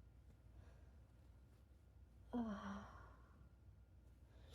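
A woman's breathy sigh, falling in pitch, about two and a half seconds in, amid near silence; a short sharp burst of breath noise comes right at the end.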